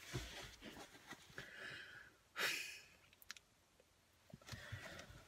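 A man's faint breathing, with a short breathy exhale like a sigh about two and a half seconds in and a couple of small clicks just after.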